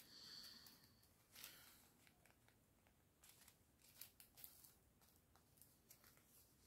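Near silence, with a few faint rustles and light clicks of small plastic zip bags of diamond-painting drills being handled.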